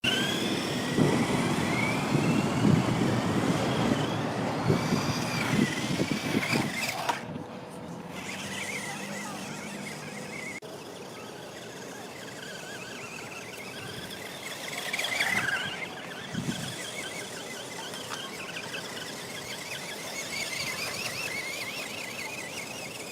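Small 1:24-scale 4WD electric RC buggy driving fast, its motor whining in short rising and falling glides over a rough rushing noise. Loud for about the first seven seconds, then fainter as the car runs further off.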